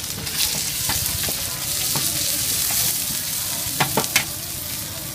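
Sliced meat sizzling in a large steel wok while a metal spatula scrapes and stirs it. About four seconds in, the spatula clanks sharply against the wok three times.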